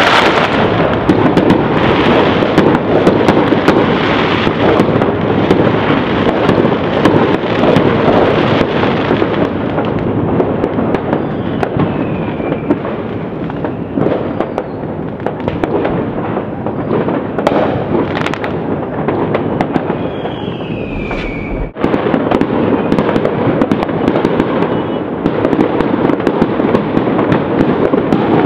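A continuous barrage of fireworks and firecrackers going off all over the city: a dense crackle of many overlapping bangs and pops that never lets up. Two falling whistles cut through it, around the middle and about three quarters of the way in.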